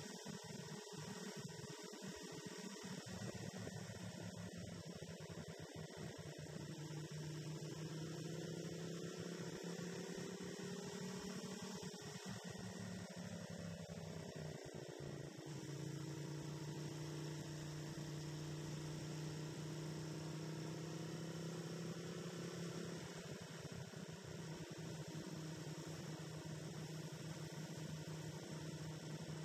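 Motorcycle engine running at a steady cruise, a low even drone. Its pitch falls away about halfway through and picks up again, then dips once more later on.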